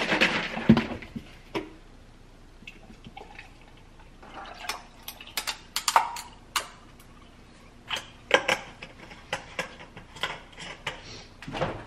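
Cold brew coffee poured from a bottle into a glass jar over ice, amid scattered clinks and knocks of bottles, a cap and glass on the counter.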